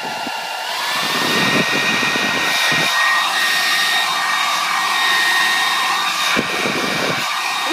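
Clairol 1200 hair dryer running on its higher setting: a steady rush of air with a motor whine that climbs in pitch about a second in as the motor comes up to speed, then holds steady.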